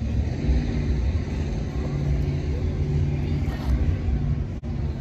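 A car engine running with a steady low rumble. The sound cuts out for an instant near the end.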